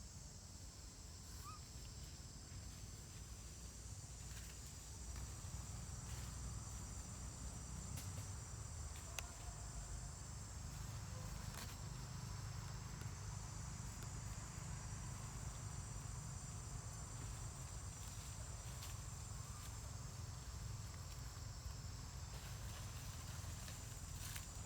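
Insects chirring in a steady high drone, with a low rumble underneath and occasional faint clicks.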